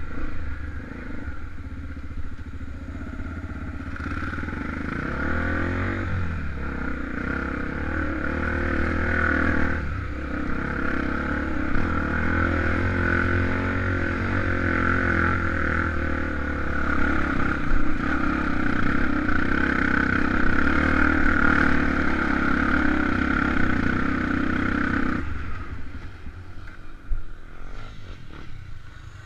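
Honda XR 250 Tornado's single-cylinder four-stroke engine running steadily under way on an enduro ride. It grows louder a few seconds in and drops off sharply near the end as the throttle is closed.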